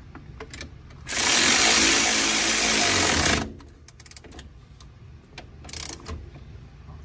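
Cordless power wrench running a nut down onto a lift-bracket bolt, a burst of about two seconds that starts about a second in and cuts off. Light metallic clicks of the socket and hardware around it.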